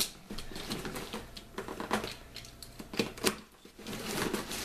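Cardboard shipping box being opened by hand: flaps pulled back and cardboard scraping, with scattered sharp clicks and taps.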